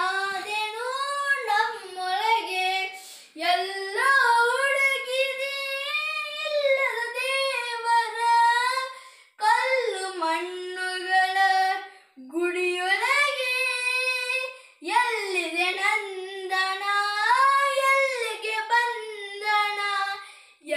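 A boy singing a Kannada song solo and unaccompanied, in long phrases with wavering, ornamented held notes and short pauses for breath.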